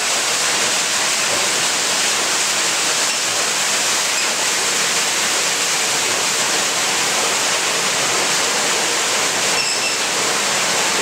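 Water rushing and splashing steadily as it pours down a wooden water wheel driven by the weight of the water.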